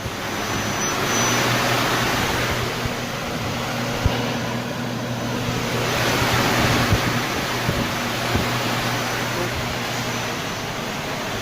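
Doosan Puma 2500 LSY multi-axis CNC lathe running an automatic cycle: a steady machine hum under a loud hiss that swells twice, with a few light knocks.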